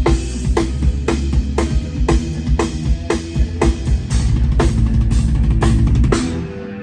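Tama drum kit played in a steady groove: a snare hit about twice a second over kick drum, stopping abruptly about six seconds in.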